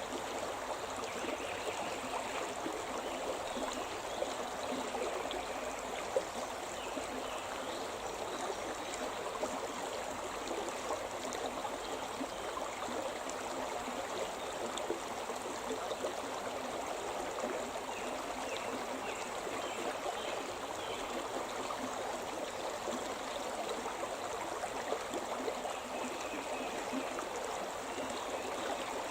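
The Shimna River flowing over its bed: a steady, unbroken rush and babble of running water.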